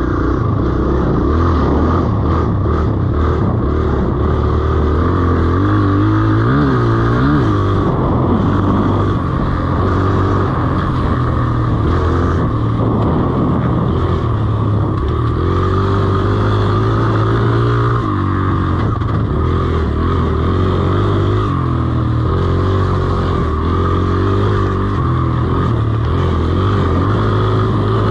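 Dirt bike engine running under changing throttle as it is ridden along a trail, its pitch rising and falling with the throttle, heard from a camera mounted on the rider.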